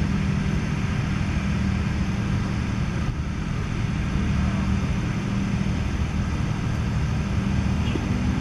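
Steady low mechanical hum of a running engine, unbroken and even in level, with a few steady low tones in it.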